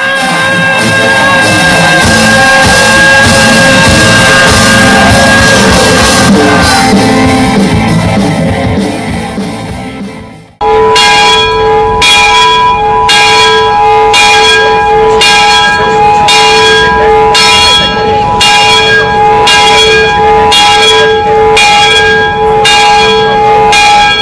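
Music plays for about ten seconds and cuts off abruptly; then a large bell tolls steadily, one stroke about every 0.7 s, each stroke ringing on into the next.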